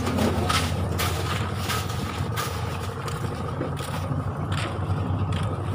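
A truck's engine idling steadily with a low hum, with scattered short knocks and clatters over it.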